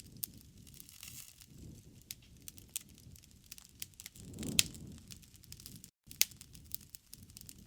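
Wood fire crackling in a fireplace: scattered sharp pops and snaps over a soft low rumble, with one louder pop about four and a half seconds in.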